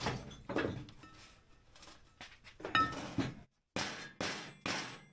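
Metal clinks and knocks of tools against a snowmobile clutch sheave as a new bushing is worked into its hub. One ringing metallic clink comes a little under 3 s in, and a run of sharp knocks follows near the end.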